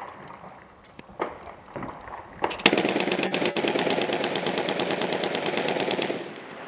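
A few scattered single gunshots, then a long burst of rapid automatic gunfire, evenly spaced shots running for about three and a half seconds and cutting off sharply near the end.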